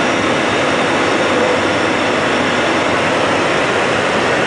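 Airliner cockpit noise on final approach: a loud, steady rush of airflow and engine noise with a faint high whine.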